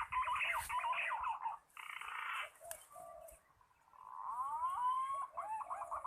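Bird calls: fast runs of short rising and falling notes, fading out around the middle and starting again, with one sharp click a little before halfway.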